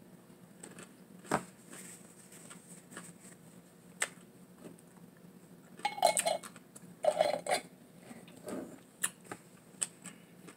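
Close-up chewing of a juicy sour pickle, with scattered wet clicks and crunches. Louder knocks and clinks come about six and seven seconds in as a glass pickle jar is handled.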